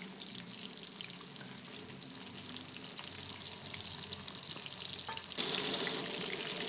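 Breadcrumbed prawns deep-frying in hot oil in a wok: a steady crackling sizzle that gets louder about five seconds in.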